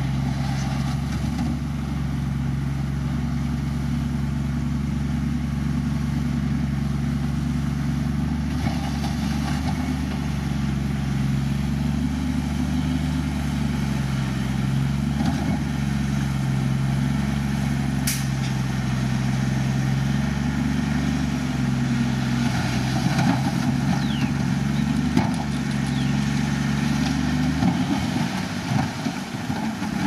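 Diesel engine of heavy earthmoving machinery running at a steady speed. Near the end its even note breaks up into a rougher, more uneven sound.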